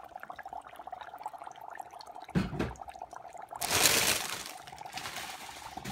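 Dry ice chunks bubbling and crackling in water in a mug, a dense run of fine pops as the ice gives off fog. A dull thump comes about two and a half seconds in, and a louder rush of noise follows about a second later.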